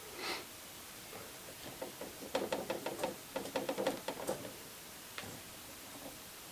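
Light, rapid clicking and tapping in two quick clusters about two to four seconds in, with a single click later: hand-tool and small plastic-part handling noise from a Roomba being taken apart with a screwdriver.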